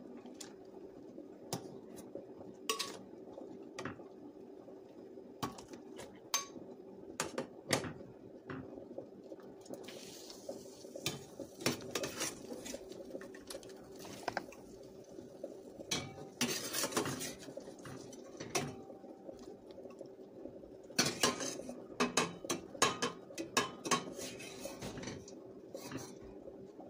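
Metal ladle clinking and scraping against a stainless steel saucepan while scooping out boiled tomatoes, jalapeños and cooking water, with short splashing and pouring sounds. The knocks come scattered and irregularly over a faint steady hum, thickest in the second half.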